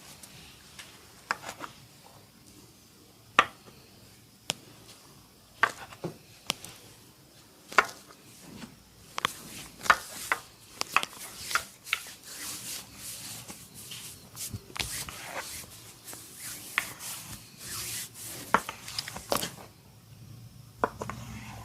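Hand massage on skin: rubbing strokes broken by a series of sharp percussive hits, scattered at first and then coming about twice a second for the middle stretch.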